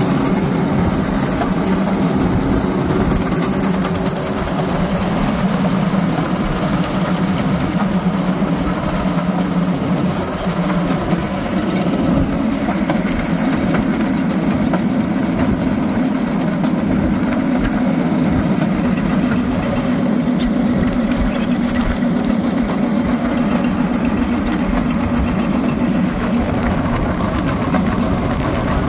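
Small engine of a motorized railcart running steadily while the cart rolls along the rails.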